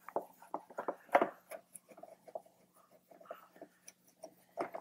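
A hand screwdriver working the Phillips screws that hold the windshield on a Harley-Davidson Road Glide's fairing: scattered light clicks and ticks of the tool and screws, with a sharper click about a second in and a few quick clicks near the end.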